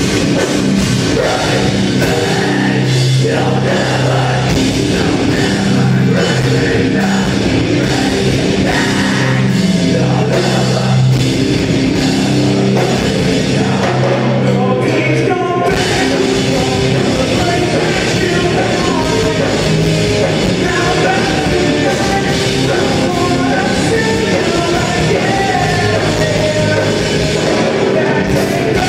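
A rock band playing live: a loud, driving song with drums, guitars and singing.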